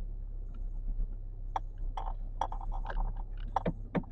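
Low steady hum of a Volkswagen Beetle driving, heard from inside the cabin, with scattered irregular clicks and light knocks.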